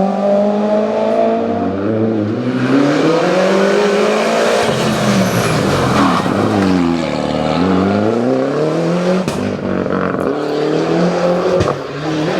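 Rally car engine under hard use: its pitch falls as the car slows and then climbs steeply as it accelerates away, with a few sharp pops in the second half.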